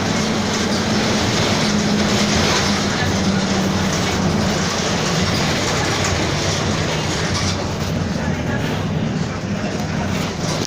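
Mercedes-Benz OF-1722M city bus running, its engine and drivetrain mixed with road noise, with a steady low hum from the growling differential that drops a little in pitch partway through.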